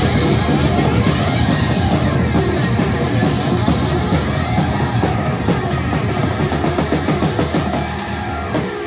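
Live rock band playing loud: distorted electric guitar over a busy drum kit. Near the end the drums stop and the guitar is left ringing.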